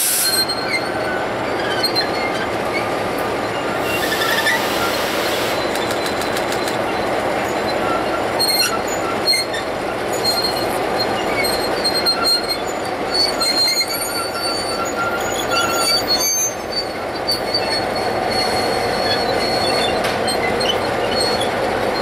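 EMD E-unit streamlined diesel locomotive running and rolling slowly at low speed, with the steady sound of its diesel engines and running gear. Thin high-pitched brake squeals come and go throughout.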